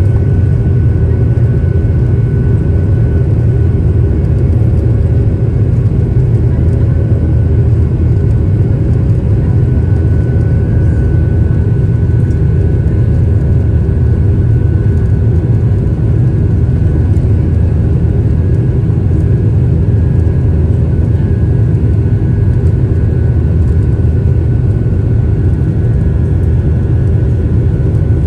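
Boeing 737-800 cabin noise at a window seat beside the CFM56-7B engine as the jet climbs out after takeoff: a loud, steady low rumble with a faint steady whine above it.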